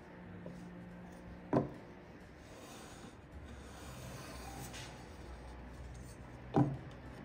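Pencil rubbing on timber as lines are drawn along a combination square, with two short knocks, about a second and a half in and near the end.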